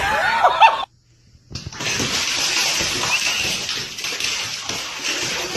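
A brief wavering pitched sound, then, about a second and a half in, a steady rush of running water, like a tap pouring into a tub.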